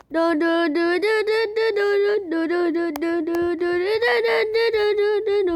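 A human voice sample, pitch-shifted and chopped into rapid short notes held at set pitches, sequenced into a stuttering melody in YTPMV style. The notes step up higher about two seconds in and again about four seconds in.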